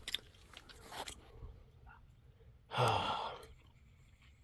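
A man sighs once, a breathy exhale of under a second, about three seconds in, with a few faint clicks before it.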